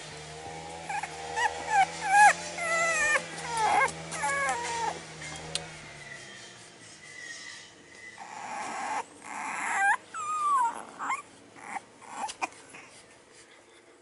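Six-week-old French Bulldog puppies whining and yelping in short, high calls, many in quick succession over the first few seconds. A couple of louder squeals and a long falling whine come around eight to ten seconds in.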